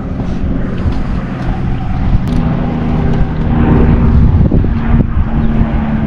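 Wind rumbling on the camera microphone over a low steady drone, which grows louder about three seconds in.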